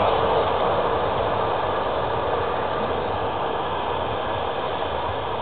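Regional passenger train of n-Wagen coaches with a red electric locomotive running away into the distance: a steady rumble of wheels on rail that slowly fades.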